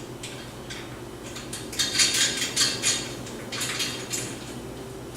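Metal hardware clinking and scraping: a bolt, washer and nut knocking against the tree stand's metal frame as the nut is put on and hand-tightened. A cluster of light clicks and scrapes comes about two to four seconds in.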